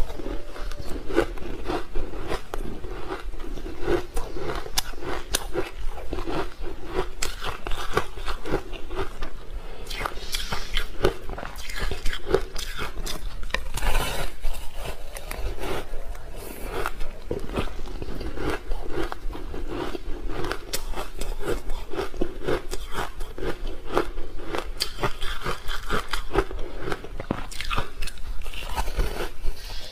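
A person biting and chewing chunks of snow-white ice dusted with matcha powder, close to a clip-on microphone: a dense, continuous run of crisp crunches and crackles.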